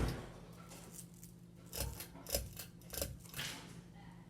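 Four sharp metallic clicks with a light rattle, spread over about a second and a half from about two seconds in, over a steady low hum. They fit the pull-chain switch of a Westinghouse Tulsa ceiling fan being worked, with the fan motor humming.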